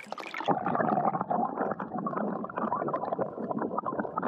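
River water heard through a submerged camera microphone: a splash as it goes under, then muffled gurgling and a dense crackle of bubbles and current, with the high sounds dulled.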